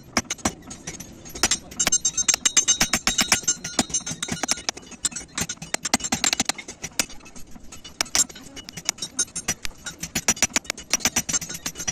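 Hand hammer striking hot steel on a small anvil block in quick, ringing metallic blows, several a second, as a billhook (aruval) blade is forged.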